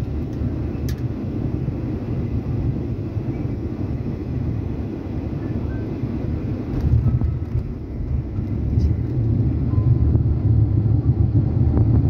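Cabin rumble of a Ryanair Boeing 737 rolling fast along the runway, heard from a window seat over the wing: a steady low rumble of engines and wheels that grows louder about seven seconds in and again near the end.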